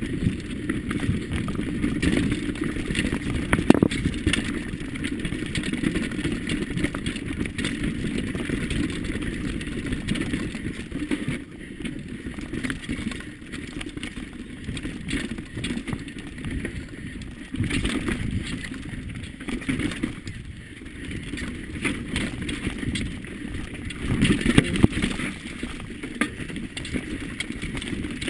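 Mountain bike descending fast over a rough, rocky dirt trail: tyres rumbling over stones and roots, with the bike clattering and rattling over the bumps. A brief louder run of knocks comes near the end.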